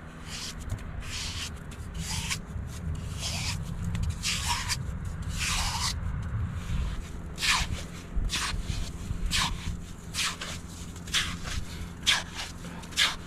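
Repeated rough scraping and rubbing strokes, roughly one a second at irregular intervals, over a steady low rumble.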